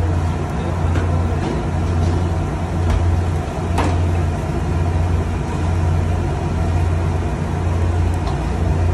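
A steady, loud low mechanical hum, with a few short clicks over it, the clearest about four seconds in.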